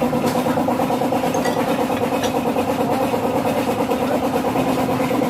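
Metal lathe running steadily with an even hum and a fast flutter.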